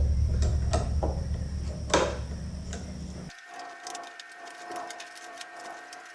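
Light clicks and scrapes from picking and scraping packed debris out from under the rubber drive belt of a Dyson upright vacuum's brush bar. The low background hum cuts off abruptly about three seconds in, leaving fine rapid ticking.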